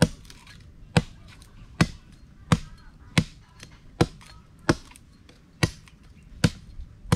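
Machete chopping through a thin bamboo stick laid on concrete: about ten sharp chops, a little under a second apart.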